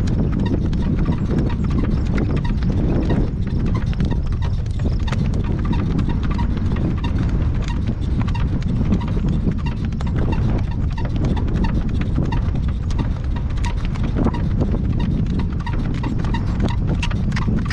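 Hooves of a horse in harness clip-clopping as it pulls a driving cart, with scattered sharp clicks over a steady low rumble.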